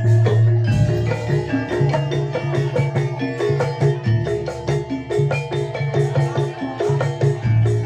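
Javanese gamelan accompaniment for a Barongan dance: metallophones play quick, repeating struck notes over a low sustained tone, with steady percussion strikes throughout.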